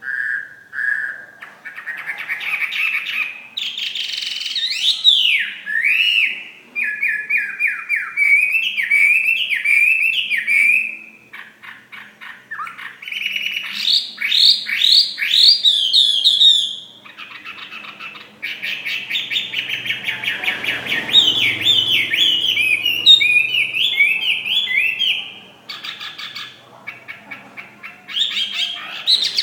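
Chinese hwamei (a Vietnamese 'fighting' hwamei) singing: long runs of rapid, varied whistled phrases and trills, broken by short pauses.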